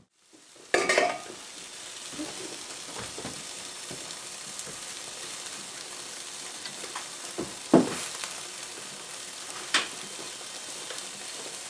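Steady sizzling hiss of food cooking on the stove, with a few sharp knocks and clicks as garlic is cut over the pot of beans; the loudest knock comes about three-quarters of the way through.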